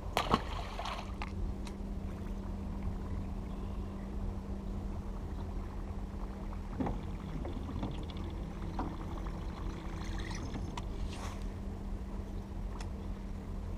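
Steady low hum of a bass boat's bow-mounted electric trolling motor under a low rumble, with a short splash near the start as a largemouth bass is dropped back into the water. A few faint clicks and knocks follow later.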